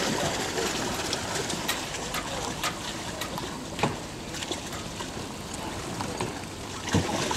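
Water trickling and lapping around an amphibious pedal boat, with scattered light clicks.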